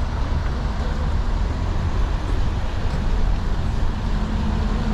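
Steady city traffic noise on a wet street: a continuous low rumble with a hiss over it.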